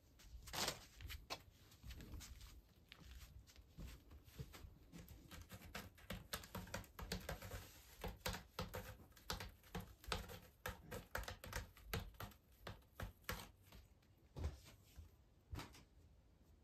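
Faint irregular clicks and taps, with a denser stretch of scratching near the middle: a cat's claws raking a sisal scratching post.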